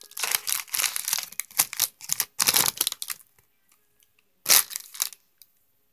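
Plastic snack wrapper crinkling as hands open it and pull out a chocolate chip cookie: rustling in bursts for about three seconds, then one more loud crinkle near the end.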